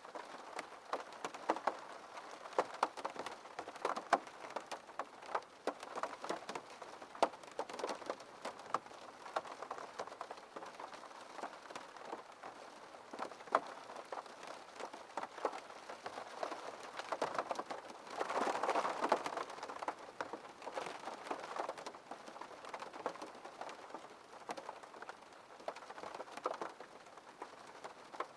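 Rain falling on a window pane: a steady hiss of rain with many separate drops ticking sharply against the glass, growing heavier for a few seconds a little past the middle.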